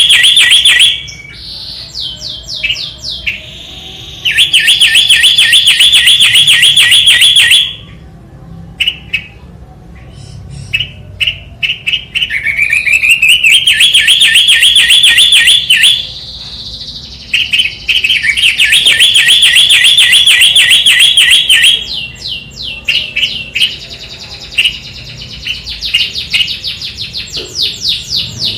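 A songbird singing in long, loud, rapid trills of quickly repeated high notes, each run lasting several seconds, with quieter scattered chirps between the runs.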